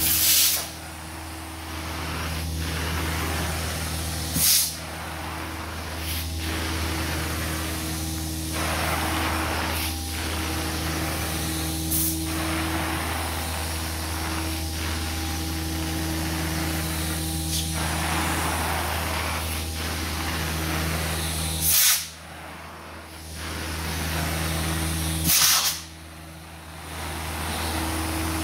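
Carpet extractor running steadily while its wand sprays and draws solution through the carpet, the hiss rising and falling with each pass. Short, sharp rushes of hiss come five times, two of them near the end.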